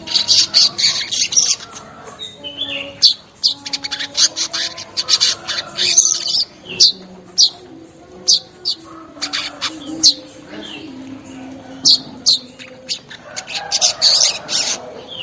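Weaver (manyar) song: sharp high chips repeating about once a second, broken up by bursts of rapid chattering notes at the start, in the middle and near the end.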